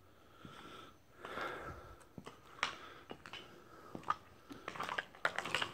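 Footsteps crunching and scuffing over a debris-littered floor: a run of irregular crunches and clicks, busiest near the end.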